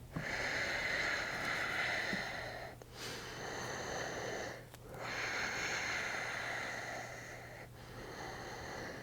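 A person's slow, deep breathing close to the microphone: several long, hissing breaths in and out, each lasting two to three seconds.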